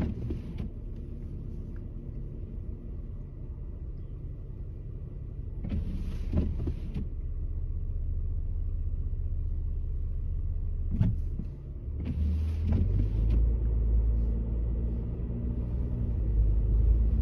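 Nissan Maxima's engine and tyres heard from inside the cabin while driving on a snowy street, a steady low rumble that grows markedly louder about two-thirds of the way through as the car pushes harder. Two brief hissing swishes come about a third and two-thirds of the way in.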